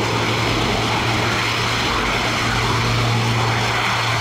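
Airbus A400M's four turboprop engines with eight-bladed propellers running: a steady low propeller drone over a broad, even rushing noise.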